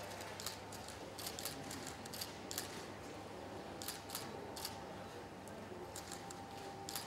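Camera shutters clicking irregularly, often several in quick succession, as a group photo is taken, over a faint steady room hum.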